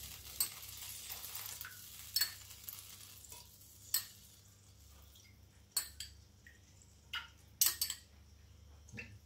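A metal spoon clinks sharply against a ceramic bowl about every two seconds as water is scooped out spoonful by spoonful and tipped into a frying pan. A faint hiss runs under the first two seconds.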